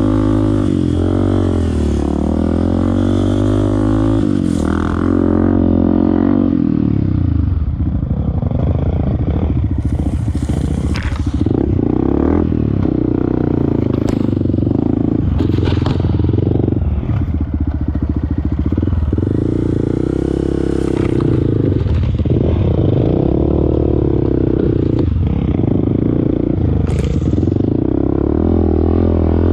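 Off-road motorcycle engine running under load in sand, its pitch rising and falling as the throttle is worked, with occasional knocks and rattles from the bike.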